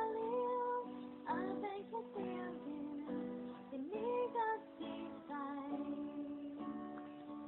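A woman singing a slow melody with long held notes that slide between pitches, over strummed guitar accompaniment.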